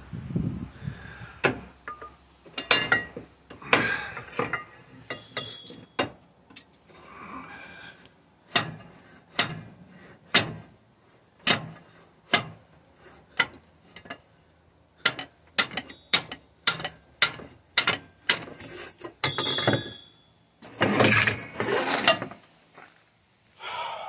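Starter solenoid on a Cummins ISX in a Volvo VNL truck clicking over and over as the key is tried, about one sharp click a second with a few quick runs. The engine does not crank, a sign the owner reads as a failing starter.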